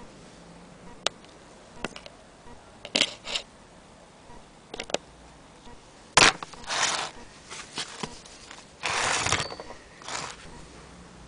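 Handling noise: scattered light clicks and knocks of hard parts, with a sharp click a little past halfway and two brief scraping rubs after it.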